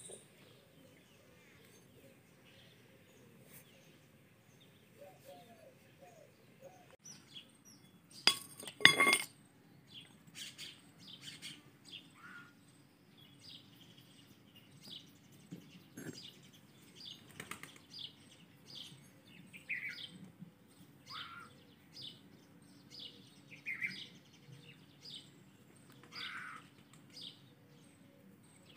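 Small birds chirping and calling off and on. About eight seconds in, a brief cluster of sharp, ringing metal clinks, metal knocked against metal, is the loudest sound.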